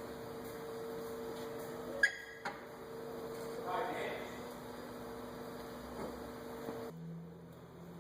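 Steady hum with one sharp, ringing metallic clink about two seconds in, like a steel tool knocking against the brake parts. The hum cuts off about seven seconds in.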